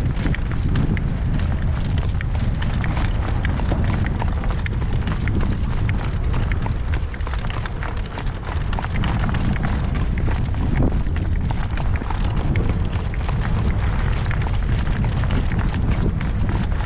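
Strong wind buffeting the microphone in a steady low rumble, with a constant scatter of small clicks and knocks over it.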